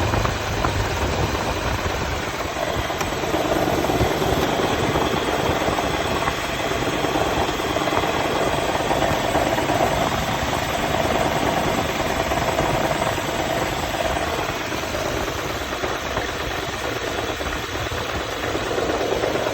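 Toyota 4Runner running with a steady low engine rumble, joined by a mid-pitched drone that swells for several seconds and then fades.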